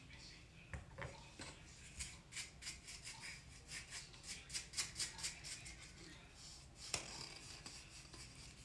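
Faint quick dabbing and rubbing of a makeup brush against a cardboard tube, several light ticks a second, with a slightly sharper click about seven seconds in.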